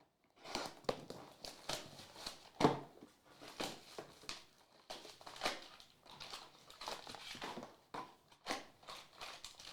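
Plastic wrapping on trading-card boxes and packs being torn open and crinkled by hand: an irregular run of rustles, rips and scrapes.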